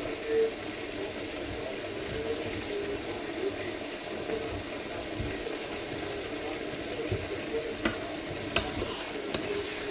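Food sizzling steadily as it fries in a frying pan while being stirred with a wooden spatula. A few sharp taps of the spatula against the pan come near the end.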